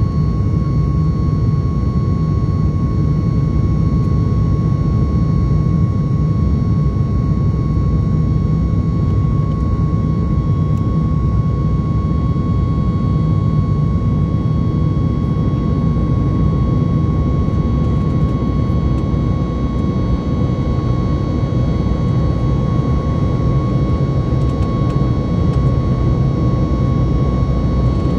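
Cabin noise of a Boeing 737 in flight, climbing out after takeoff: a steady, dense rumble of jet engines and airflow with a thin steady whine above it.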